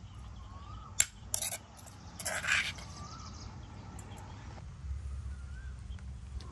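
Metal spoon clinking and scraping against a stainless-steel bowl as shredded meat is scooped out: one sharp clink about a second in, a few lighter clinks just after, then a short scrape.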